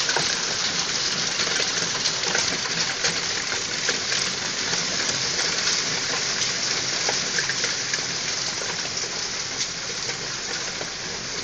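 Heavy downpour of rain and hail: a dense, steady hiss with scattered sharp ticks of hailstones striking.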